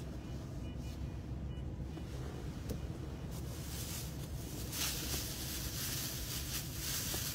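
Low rumble of a stationary car heard from inside its cabin, with a steady hiss coming in about three seconds in.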